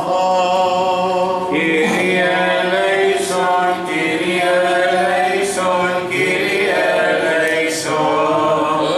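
Greek Orthodox Byzantine chant: voices singing a slow, moving melody over a steady held drone (ison).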